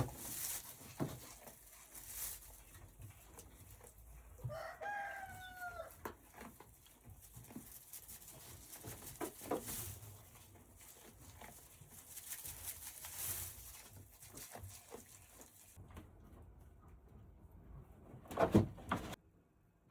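A rooster crowing once, about four and a half seconds in, a single call that falls away at its end, amid scattered faint knocks and clicks. A louder knock comes near the end.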